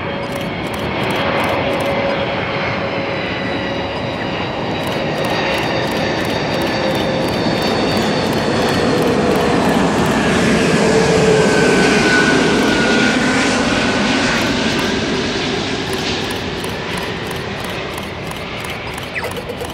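Antonov An-124's four turbofan engines on landing approach, passing overhead: a steady jet rumble with whining tones that fall in pitch. It grows louder to a peak a little past halfway, then fades as the aircraft goes away.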